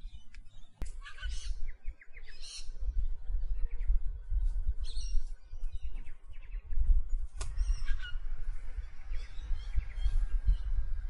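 Birds calling: short chirps, squawks and quick runs of repeated notes every second or two, over a constant low gusting rumble of wind on the microphone.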